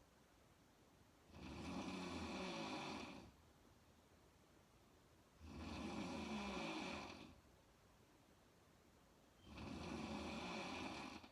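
A sleeping woman snoring with her mouth open: three long snores about four seconds apart, each lasting about two seconds.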